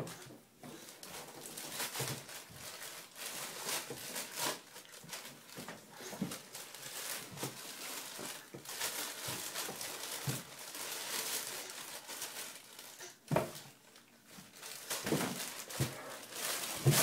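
Fabric and a diaper rustling as a toddler clambers about on a wardrobe shelf among clothes, with several knocks against the cupboard, the loudest near the end.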